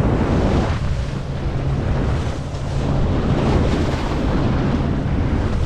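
Motorboat running at speed: a steady low engine hum under the rush of water spraying off the hull, with heavy wind buffeting the microphone.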